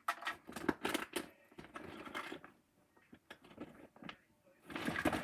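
Rummaging through toys: objects handled and set down, with scattered clicks and rustling and a quieter stretch midway.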